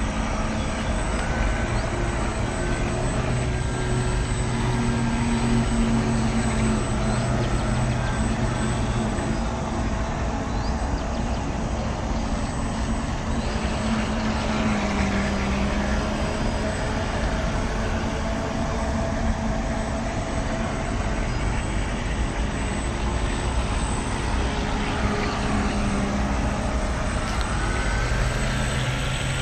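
Motors and propellers of a radio-controlled 1:40 model catamaran ferry running on the water. Their hum steps up and down in pitch as the throttle changes, over a steady rushing background.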